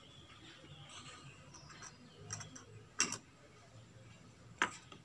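Two sharp clicks about a second and a half apart, from a soldering iron being lifted and handled against solder wire; faint room hiss between them.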